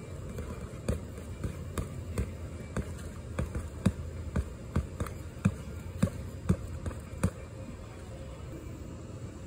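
Boxing-glove punches landing on a padded body protector strapped to a tree: about fifteen sharp thuds in quick combinations, roughly two a second, which stop about seven seconds in.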